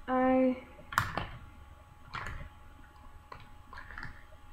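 A short steady hum at the start, then scattered light clicks and clatter of makeup products being handled and picked up.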